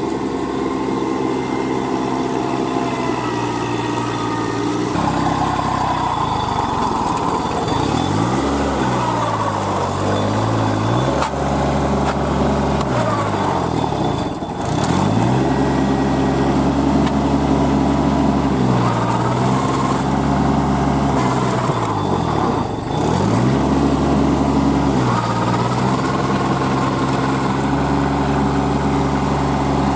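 Kubota B2441 compact tractor's three-cylinder diesel engine struggling in deep mud. It runs steadily at first, then from about eight seconds in its speed sags and picks up again about six times as the load comes and goes.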